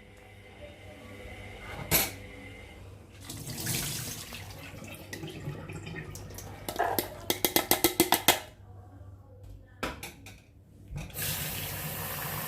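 Water running and splashing as soaked chana dal is washed in a vessel, with a quick run of sharp clinks a little past the middle and single knocks about 2 s and 10 s in.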